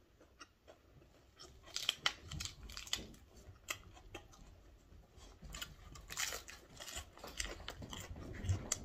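A person chewing crisp leafy greens close to the microphone: irregular quick crunches and wet mouth clicks, starting about a second and a half in.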